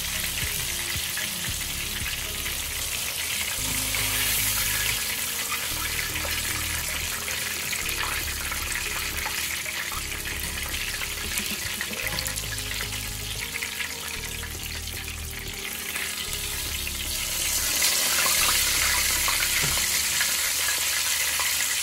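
Breaded bream and catfish pieces deep-frying in hot oil in a skillet, with a steady crackling sizzle that grows louder in the last few seconds.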